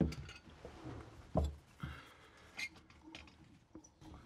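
Light knocks and clicks of pliers and hands on a sink supply line's metal knurled nut as it is loosened, one sharper knock at the start and another about a second and a half in, with faint handling noise between.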